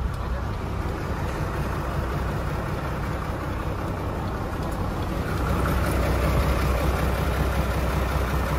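Isuzu Forward truck's 6HK1 six-cylinder diesel engine idling steadily, a low rumble that gets a little louder about five seconds in.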